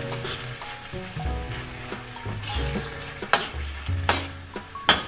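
Spiced pork filling sizzling in a stainless steel wok while a spatula stirs it, with a few sharp knocks of the spatula against the wok in the second half.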